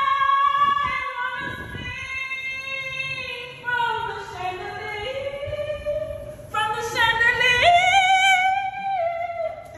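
A woman singing unaccompanied in two long phrases of held notes. The first phrase sinks slowly in pitch; the second leaps up to a high note, held until near the end.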